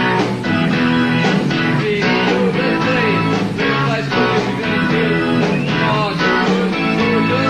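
Live rock band playing an instrumental passage: electric guitars over bass and drums, with the lead guitar's notes bending and wavering.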